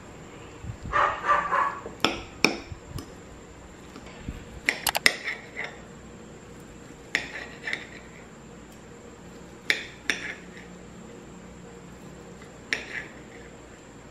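Metal fork and knife clinking and scraping against plates while cutting food: sharp single clinks every couple of seconds, with a quick cluster about five seconds in. About a second in, a brief louder rough sound stands out.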